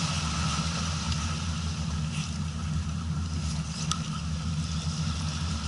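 A boat engine running steadily at low speed, with a constant hiss above it and a faint click about four seconds in.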